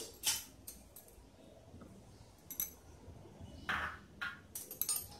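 A metal spoon tapping against a steel pot and glass bowls while turmeric powder is spooned onto meat: a handful of separate light clinks and knocks, coming closer together near the end.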